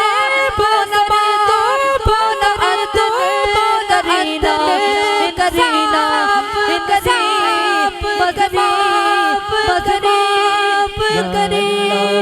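Sufi devotional song: a melodic passage without clear words, the pitch gliding and ornamented, with a low steady drone coming in near the end.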